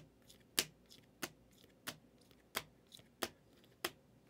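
Hard plastic trading-card cases clacking one after another as they are handled and set down, a sharp click about every two-thirds of a second, seven in all.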